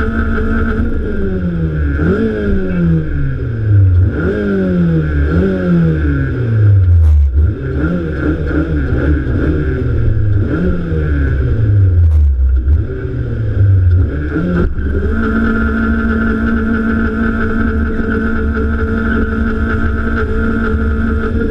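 Integra four-cylinder engine revving hard during a burnout: the revs are held steady at first, then rise and fall over and over about once a second for most of the stretch, then are held steady again, dropping away at the very end.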